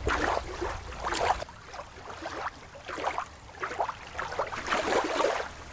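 Water and wind noise: shallow water lapping briefly, then open-sea wind and water with irregular surges.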